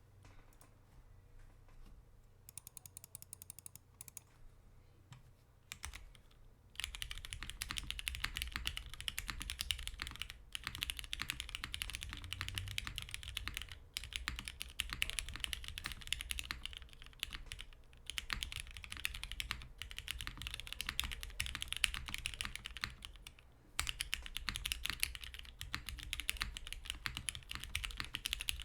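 Mechanical keyboard with lubed vintage Cherry MX Black linear switches on an aluminum plate, with doubleshot keycaps, being typed on. A few slow, scattered keystrokes at first, then from about seven seconds in, fast continuous typing broken by a few brief pauses.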